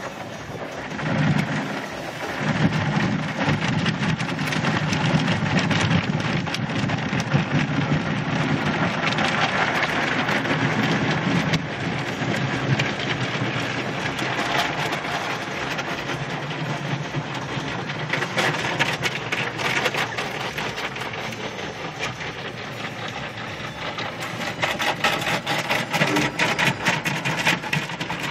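Automatic car wash heard from inside the car's cabin: water spray and cloth wash brushes pelting and rubbing the windshield and body in a dense, steady wash of noise over a low rumble, building up about a second in.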